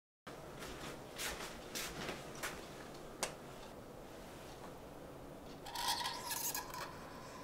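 Red felt-tip pen drawing a circle on a paper wall calendar: a short run of scratchy strokes of the nib on paper about six seconds in, the loudest sound here. Before it, a few soft rustles and taps over quiet room tone.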